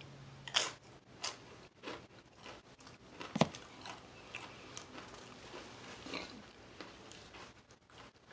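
A person chewing a sandwich: faint, scattered bites, crunches and mouth clicks, the sharpest about three and a half seconds in.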